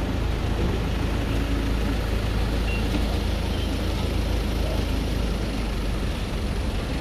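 Street noise with traffic: a steady low rumble under an even hiss.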